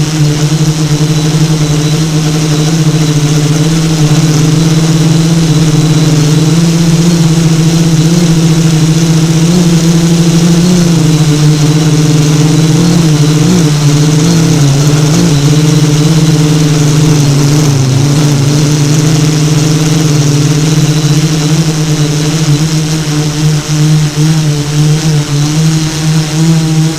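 FPV multirotor drone's motors and propellers running steadily in flight, a loud pitched hum that wavers slightly up and down with throttle.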